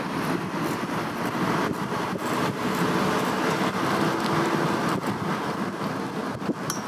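Steady rush of wind and rolling road noise from a bicycle ridden at speed along a paved path.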